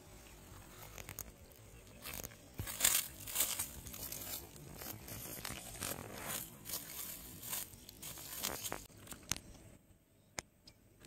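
Irregular rustling and crackling of dry grass and leaves as a freshly landed tilapia flaps on the bank and is handled. The sound goes quieter near the end, with a few sharp clicks.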